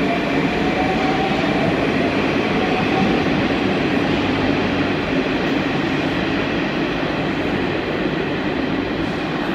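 Metro train moving through the station: a steady rumble with a faint motor whine rising slightly over the first few seconds, the noise easing a little toward the end.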